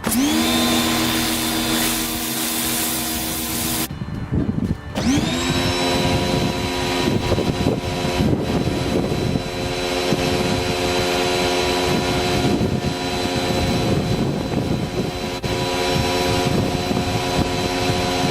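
V-TUF V3 135 bar electric pressure washer starting up and running, its motor and pump whining at a steady pitch over the hiss of the spray. It stops about four seconds in, starts again a second later and runs steadily on.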